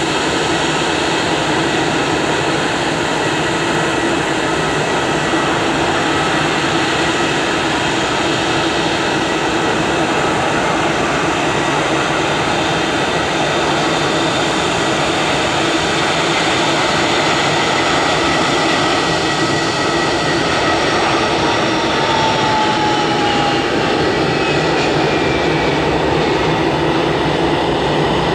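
Airbus A319 jet airliner engines on landing approach: a loud, steady whine and rush. From about three quarters of the way through, tones in the whine slide down in pitch as the aircraft passes.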